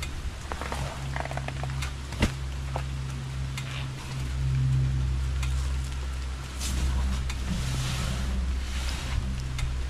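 Steady rain hissing over a low, even engine hum, while sacks of chicken manure are dragged and set down on a metal cart bed, with one sharp knock about two seconds in.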